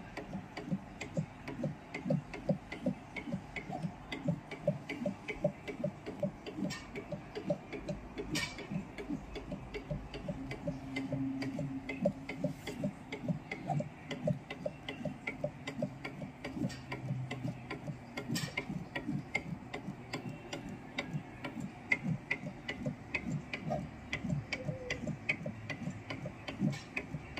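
Automatic soldering machine at work, its soldering iron and solder-wire feeder stepping from joint to joint with a rapid, steady ticking of several clicks a second, and now and then a sharper click.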